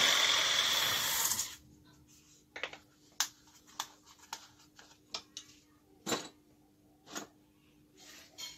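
Power-tool knife-sharpening machine running and then winding down, fading out about a second and a half in. It is followed by a string of light, irregular clicks and taps, about ten in all.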